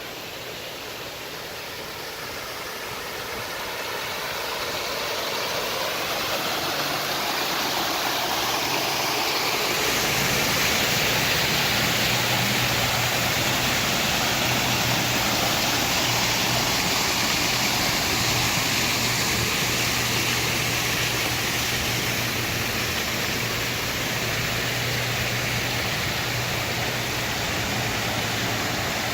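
Water running and splashing in a small artificial stream, a steady rushing that grows louder over the first ten seconds and then holds, with a steady low hum underneath.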